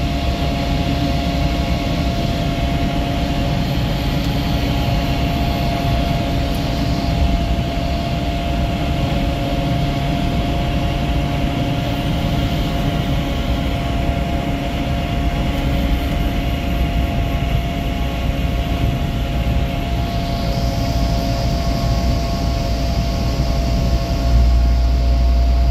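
A vehicle travelling along a road: steady engine and road rumble with a thin, steady whine. The low rumble gets louder near the end.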